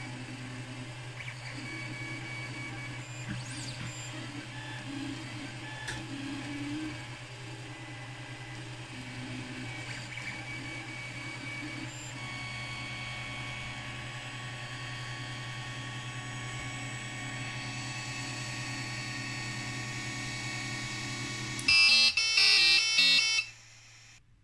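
Creality Ender 3 3D printer powered on, its fans humming steadily. Near the end its stepper motors whine for about a second and a half in quick, changing tones as the print head moves away from the finished part.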